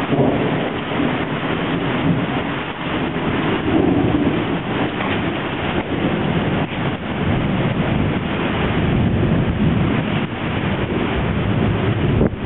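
Heavy rain falling and splashing on a flooded street, with wind rumbling on the microphone.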